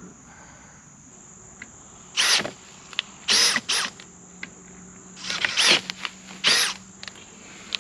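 Cordless drill run in about five short trigger bursts, each whining up and back down, worked against a metal mounting bracket. A steady high insect buzz runs underneath.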